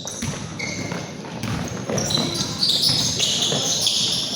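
Basketball game play: a ball bouncing on the court while sneakers squeak in short, high chirps, more of them in the second half, with voices in the background.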